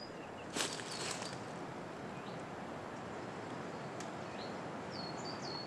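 Outdoor rural ambience: a steady soft hiss with a few short, high bird chirps, more of them near the end, and a brief rustle about half a second in.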